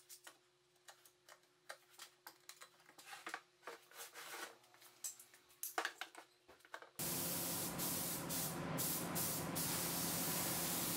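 Faint clicks and knocks of quick-release bar clamps being set on an MDF box. About seven seconds in this cuts to a loud, steady rush of air from a paint spray booth and spray gun laying on a priming coat, with a few short extra hisses.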